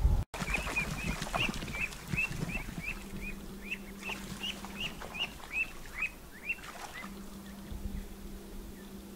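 Pacific black duck ducklings peeping: a run of about twenty short, high, down-curling peeps, roughly three a second, that stops about seven seconds in.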